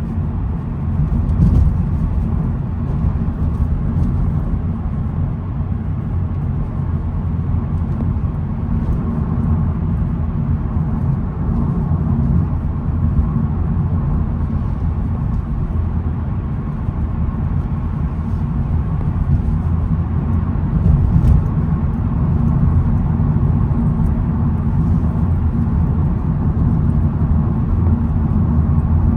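2022 SEAT Ibiza FR heard from inside the cabin while driving: a steady low rumble of engine and road noise.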